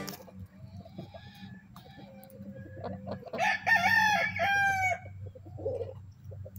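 Backyard chickens: soft clucks and low calls, then, about three seconds in, a loud crow of several stepped notes lasting about a second and a half. A few faint taps follow near the end.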